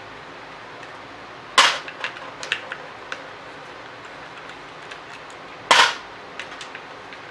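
Two sharp cracks about four seconds apart as tight screws in a pressure washer's pump head break loose under a hand hex driver, each followed by a few lighter metallic clicks of the tool and screw.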